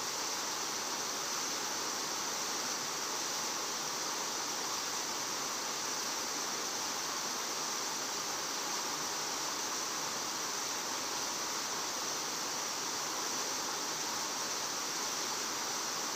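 Steady rushing hiss of water flowing in a concrete irrigation canal, even throughout with no distinct events.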